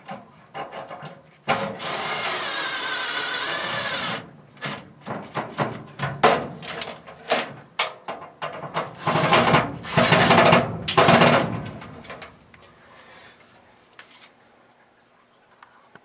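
Ryobi One+ cordless drill driving in the screws that hold the furnace blower assembly in place. It runs steadily for about two and a half seconds and stops sharply, then gives a few clicks and knocks, then a second run of about two seconds that sounds choppier.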